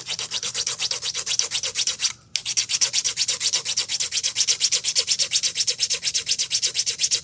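Sanding stick rubbed quickly back and forth across a 3D-printed plastic part, about five strokes a second, with a short pause about two seconds in.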